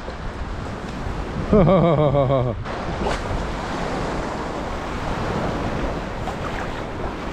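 Strong wind rushing over the microphone, with choppy water lapping at the shore. A short wavering vocal sound breaks in about one and a half seconds in.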